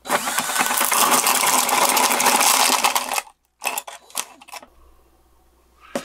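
Power drill boring a hole through plywood for about three seconds, then stopping; the bit breaks through and splinters the plywood on the far side. A few short clicks and knocks follow.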